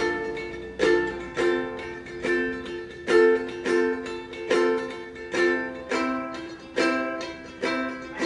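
Ukulele strummed in a repeating rhythm, strong downstrokes with lighter strums between, playing the intro chord progression D minor, F, C, B flat.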